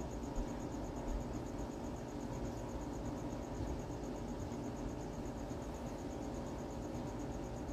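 A cricket chirping in a high, fast, even pulse that keeps on without a break, over a low steady hum.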